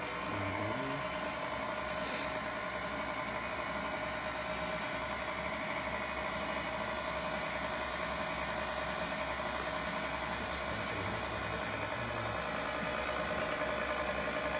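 KitchenAid Classic Plus stand mixer running steadily on low speed, its motor giving an even hum as it beats thin chocolate cake batter in the steel bowl.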